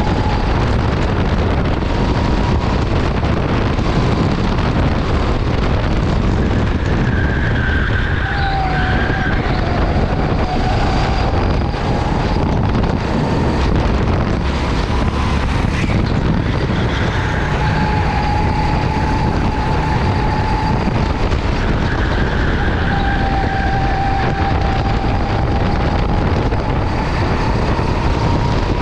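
Go-kart lapping at speed: a steady loud rush of noise with the kart's motor whine sliding down and back up in pitch every several seconds, as it slows for corners and accelerates out of them.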